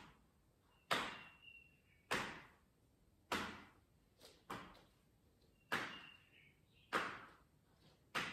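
Hands whacking the buttocks in a steady rhythm as a self-massage: seven sharp smacks about 1.2 seconds apart, each dying away quickly.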